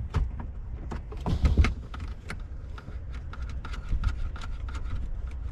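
Scattered clicks and knocks of hands and tools working on a BMW 335i's battery distribution box and its connections, over a steady low rumble.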